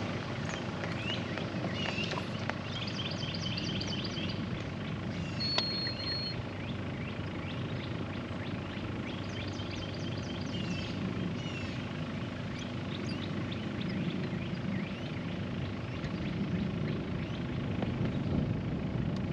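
A steady low hum with birds chirping in short repeated trills over it, and one high whistled note about six seconds in.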